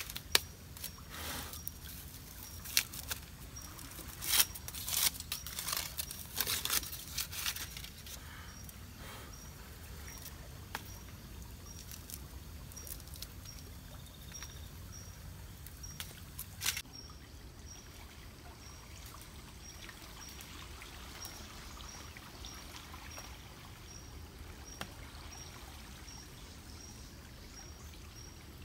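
Water trickling and flowing steadily. Sharp clicks and knocks come in the first several seconds and are the loudest sounds. A faint high-pitched chirp repeats evenly, about three times every two seconds.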